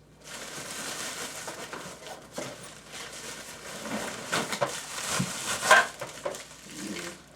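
Rustling and crinkling of packaging, with a few sharp knocks, as a power tool is handled and lifted out of its box.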